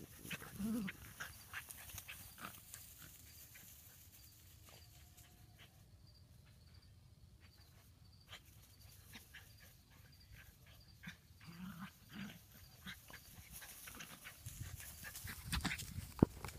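Dachshunds playing and chasing each other on grass, with a few short, low play growls about a second in and again past the middle of the clip, and scattered light patter and rustle. Several louder knocks sound near the end.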